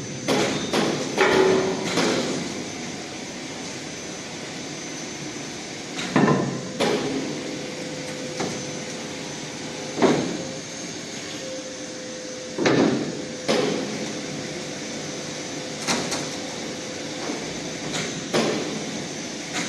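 Heavy stainless-steel furnace covers being moved, giving about a dozen sharp metal clanks and knocks at uneven intervals, each with a short ring. A faint steady hum runs under the second half.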